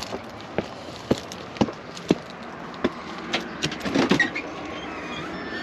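Footsteps on a hard surface, about two steps a second, followed by a brief cluster of knocks and clatter about four seconds in.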